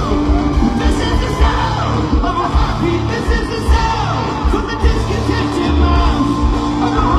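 Live rock band playing: drums, bass and electric guitars at full volume, with singing and yells over the top.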